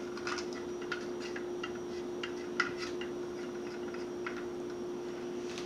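Silicone spatula scraping melted butter out of a small plastic tub, with a string of light, irregular ticks and clicks as it knocks against the tub, the loudest about two and a half seconds in. A steady hum runs underneath.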